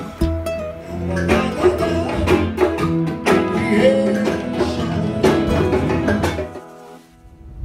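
Guitar-led music with plucked strings, which stops shortly before the end.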